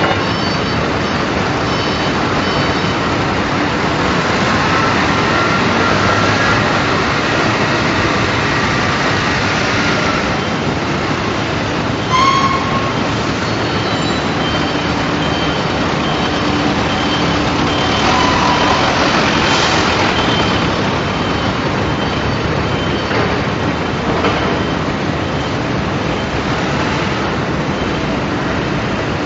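Loud, steady industrial machinery noise with high squealing tones coming and going, and a short beep about twelve seconds in.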